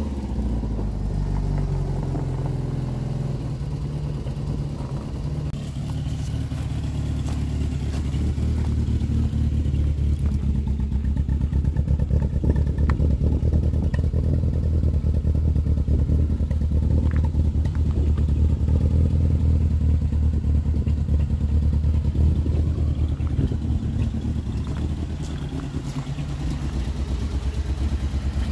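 A Mk2 VW Golf GTI 16v four-cylinder engine with Bosch K-Jetronic fuel injection running at a steady idle. It grows louder about a third of the way in and eases off near the end. The engine still has a misfire that the owner has yet to track down.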